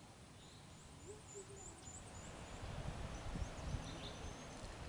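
Birds calling outdoors: a run of short, high, repeated chirps, and a low call of a few short notes about a second in. A low rumble builds from about halfway through.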